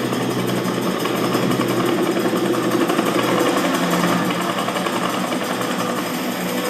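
Movie soundtrack playing from a Zebronics Juke Bar 9700 soundbar in Dolby Atmos mode: a loud, steady, engine-like mechanical din.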